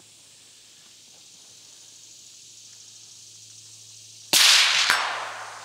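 Rifle fire: two sharp shots about half a second apart, a little over four seconds in, the first the louder, each followed by a long fading echo.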